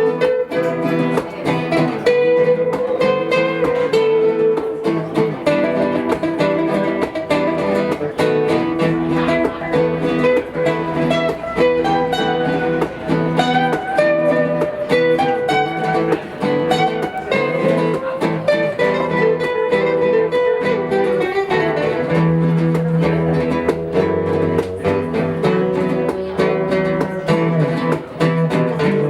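Guitar music: plucked guitar notes in quick succession, played continuously at a steady level.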